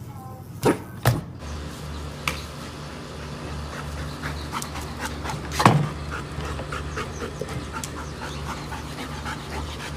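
Dog panting in a quick, steady rhythm, with a few sharp knocks, the loudest a little before the middle.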